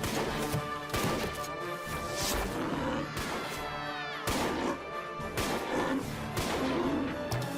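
Cartoon soundtrack music under a string of sharp crashes and hits, about one a second, from the battle sound effects.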